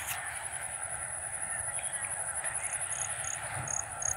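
Outdoor ambience: a steady, high-pitched, finely pulsing insect trill, with a run of about five short, evenly spaced high chirps in the second half.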